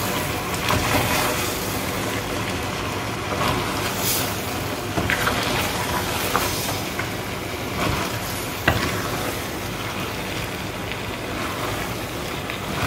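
Wooden spoon stirring grated okra into meat in a hot stainless steel pot: a steady sizzling hiss with scraping. A few sharp knocks of the spoon on the pot, the clearest about two-thirds of the way through.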